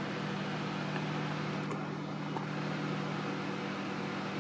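Steady low hum with an even hiss: background room noise from a running machine such as a fan or air conditioner.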